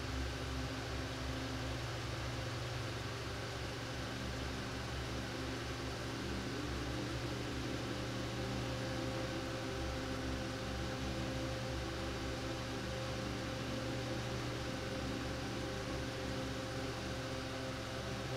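Steady low hum with hiss from a car engine idling, with no change in pitch or level.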